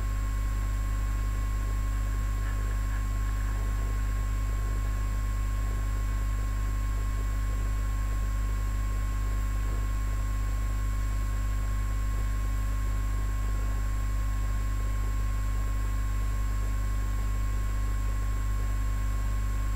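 Steady electrical hum and hiss with a few constant thin tones over it, the line noise of a webcam audio feed; no bird calls or wing sounds stand out.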